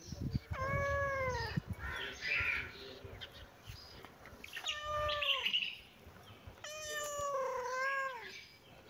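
A tabby-and-white domestic cat meowing three times, each a drawn-out call that rises and falls in pitch, the third the longest.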